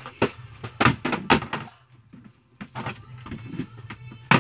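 A series of sharp knocks and thumps, about six in all with the loudest near the end, from pantry items being flipped into the air and landing.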